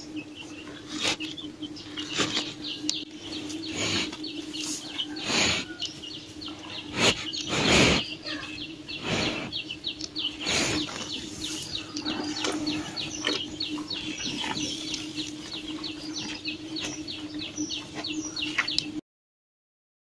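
Cows feeding and drinking from a water tub: loud breathy snorts and slurps come every second or two, the loudest about eight seconds in. Over them runs a steady low hum, and in the second half a rapid series of high chirps, about three a second.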